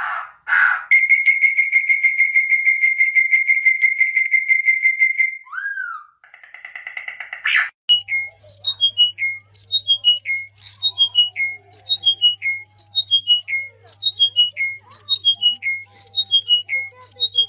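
Birds whistling and calling: a rapid trill held on one pitch for about four seconds, then a short falling note. From about eight seconds a call of several stepped, falling notes repeats about once a second over a steady low hum.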